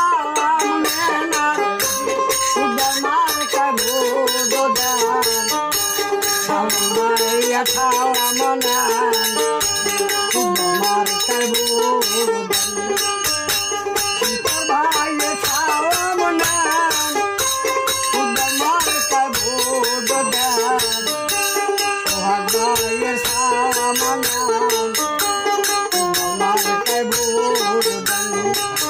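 A Bengali Baul folk song: a man singing to his own dotara, a plucked long-necked lute, with a jingling, rattling beat underneath.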